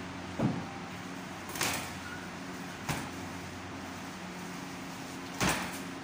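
Four separate knocks and thumps from a knife and a beef shoulder being handled on a plastic cutting board and stainless-steel counter, over a steady low hum.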